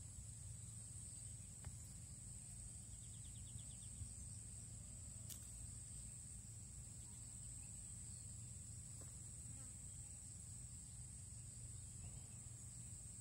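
Faint, steady high-pitched insect chorus over a low background rumble, with a few faint clicks.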